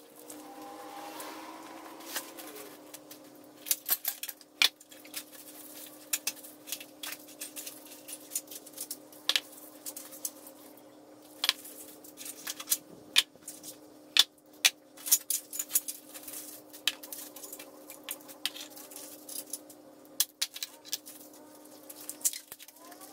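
Steel frame tubes and small cut metal parts of a minibike frame kit clinking and tapping as they are set down one by one on fiberboard, with sharp clicks scattered throughout over a steady low hum.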